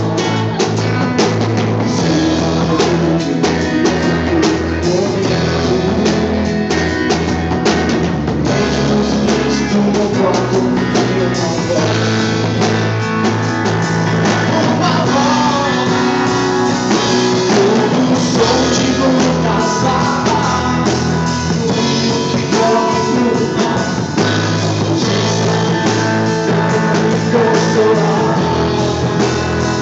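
Band playing a rock-style worship song on drum kit and guitar, with some singing.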